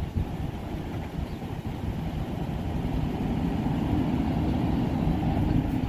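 Low, steady rumble of an idling vehicle engine, growing slightly louder with a steady low hum coming in about halfway through.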